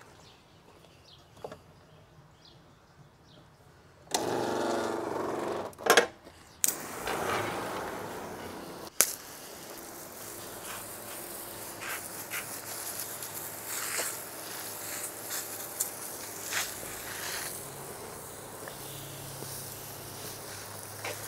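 A 12-volt soft-wash pump spraying cleaning solution onto a house, a steady hiss of spray over a small motor buzz. It starts about four seconds in with a louder burst and a few sharp clicks.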